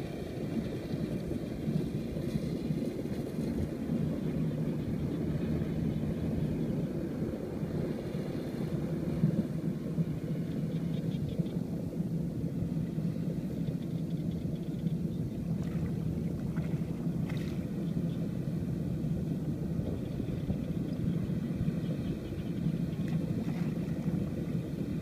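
A steady, low engine drone, with a faint constant hum under it.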